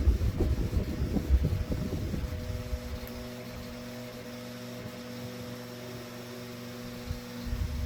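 Late-1960s Westinghouse AT12-1 12-inch table fan running on high, its two-speed shaded-pole motor giving a steady buzzing hum. An uneven low rumble comes and goes in the first two seconds and again near the end. The motor is buzzy, and the owner thinks its bearings are likely worn from running a long time without oil.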